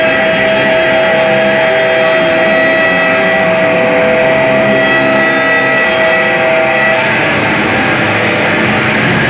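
Loud wall of noise music from distorted guitar and electronics: a dense hiss with steady held tones over it. About seven seconds in the held tones drop away and leave a more even haze of noise.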